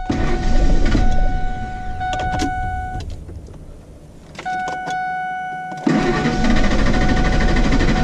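2003 Ford F-150's 4.6-litre V8 cranking on the starter without catching, in two tries: about three seconds at the start, then again from about six seconds in. A crank-no-start that the owner puts down to an intermittent fuel pump problem.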